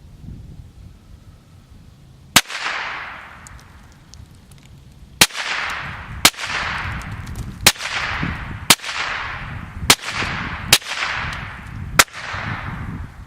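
.22 caliber rifle firing eight shots: one sharp crack, then seven more in quick succession about a second apart, each trailing off in a long echo.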